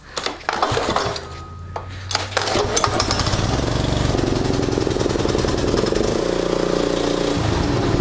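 Walk-behind mower's Briggs & Stratton vertical-shaft engine pull-started by its recoil starter, catching about two and a half seconds in and then running steadily.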